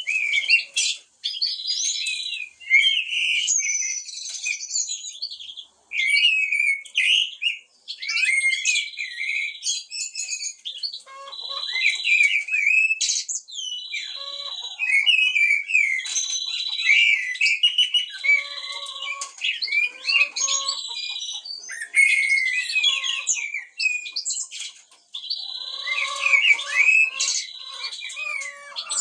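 Blackbirds singing among other birds: a dense chorus of overlapping whistles and chirps, with a buzzy trill repeating every couple of seconds.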